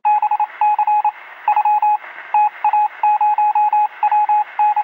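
Electronic beeps at one pitch, short and longer ones in an irregular on-off pattern like Morse code, sounding thin as if over a radio or telephone line.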